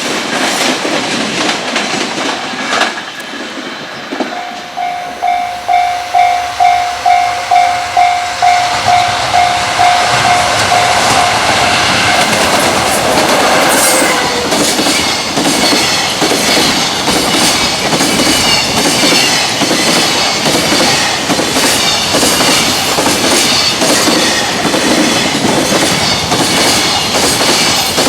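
A level-crossing warning bell starts clanging about four seconds in, about two strikes a second, and fades out after several seconds. A freight train then passes at speed, its wheels clattering rhythmically over the rail joints.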